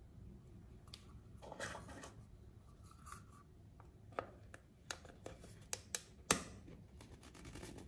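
Hands handling a plastic LED bulb in its plastic lamp holder: a brief rustle about a second and a half in, then about six sharp plastic clicks and taps over the next two seconds, the last the loudest.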